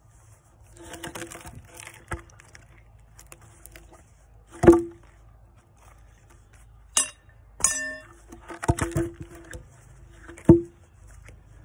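Blocks of walnut being broken out by hand from between chainsaw kerf cuts in a log and tossed aside: wood pieces rattle and scrape together, with two sharp wooden knocks, one about a third of the way in and one near the end.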